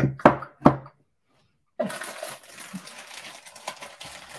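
Handling of rubber-stamping supplies on a craft desk: three short knocks in the first second, then from about two seconds in a soft, steady rustle with faint clicks.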